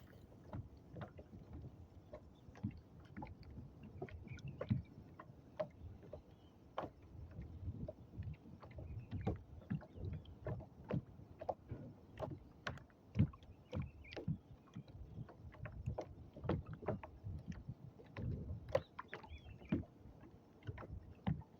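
Small waves lapping against a kayak's hull, with irregular knocks and splashes.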